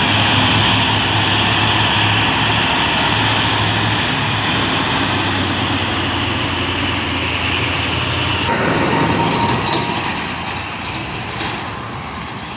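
Heavy diesel truck engines running as loaded Mitsubishi Fuso dump trucks pass close by on the road, with a steady low hum and tyre hiss. About eight and a half seconds in the sound changes suddenly to another truck's engine and road noise, which fades a little toward the end.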